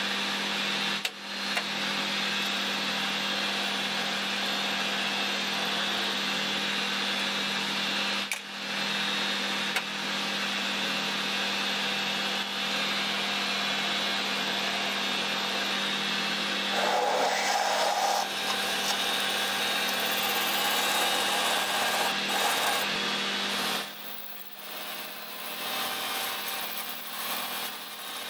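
Metal lathe running and cutting aluminium bar, with a steady hum from its motor and gearing under the noise of the cut. About two-thirds of the way in a brief higher cutting tone comes in, and for the last few seconds the machine runs more quietly.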